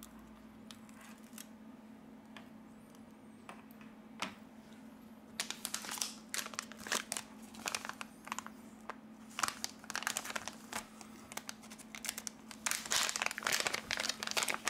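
Crinkling and tearing of thin plastic film as red double-sided adhesive tape for the phone battery is unrolled, cut and its backing peeled. The crackle starts about five seconds in, after a few isolated clicks, and grows busier toward the end.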